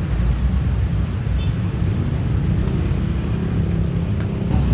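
Steady low rumble of road traffic passing.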